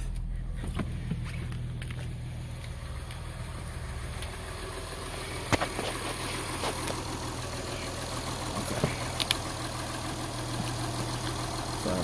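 Car engine idling steadily, with a few short sharp clicks over it about halfway through.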